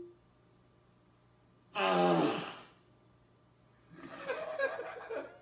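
Amazon Alexa smart speaker playing a fart sound effect on request. About two seconds in there is a short fart that falls in pitch. About four seconds in a longer, rougher, noisier sound follows.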